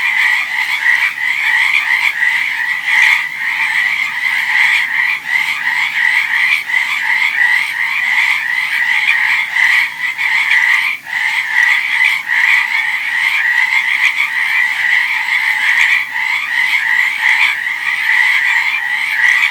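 Dense chorus of many frogs calling at once, a steady unbroken trilling with only a brief lull about eleven seconds in.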